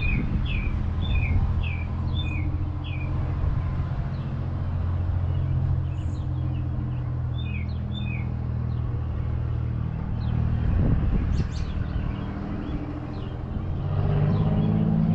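Small two-stroke moped engine idling steadily, picking up near the end; a bird chirps repeatedly over the first few seconds and again briefly about six seconds in.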